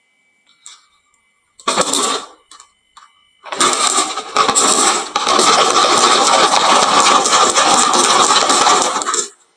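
Marbles clattering down a wooden marble run: a short rush of rattling, a few single clicks, then a long dense run of many marbles rattling together that stops suddenly near the end.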